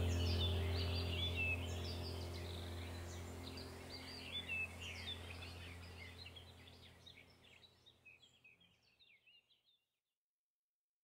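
Many small birds chirping over a low steady hum, everything fading out gradually to silence about eight seconds in.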